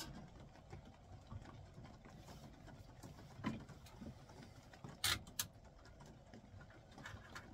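Faint handling noises of a rubber hose against a plastic bucket, with a few short sharp clicks: one about three and a half seconds in and a louder close pair about five seconds in, as a spring clamp is fitted to hold the hose on the bucket rim.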